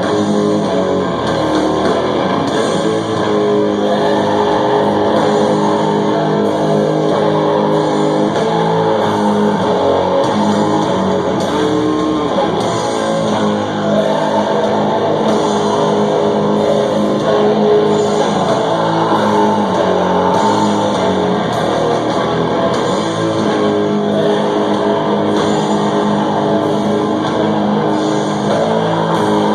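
Live heavy metal band playing loud electric guitars and bass in long, held chords that change every few seconds.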